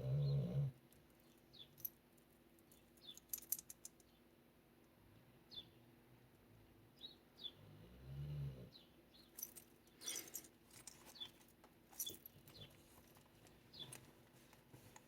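A dog snoring: a low snore as it begins and another about eight seconds in. Between them come paper rustles and clicks from journal pages being turned, and faint short high chirps.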